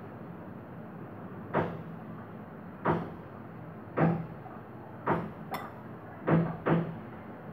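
Repeated dull knocks, about one a second and twice in quick pairs, over a steady low background hum.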